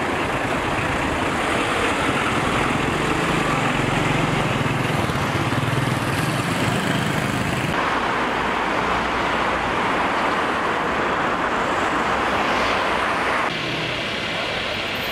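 Steady city street traffic noise: cars, vans and buses running by. The mix changes abruptly about eight seconds in and again near the end.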